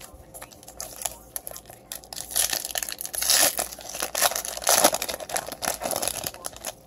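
Foil wrapper of a 2018 Topps Chrome baseball card pack crinkling and tearing as it is ripped open by hand. The crackle starts about two seconds in, is loudest in the middle, and stops just before the end.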